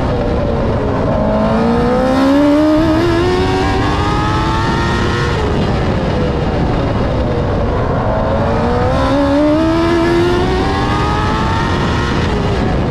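TQ midget race car's engine heard onboard at racing speed: the revs climb for about four seconds, drop off, then climb again.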